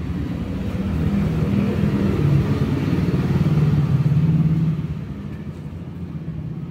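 A motor vehicle engine running, growing louder over the first few seconds and then dropping off suddenly about five seconds in.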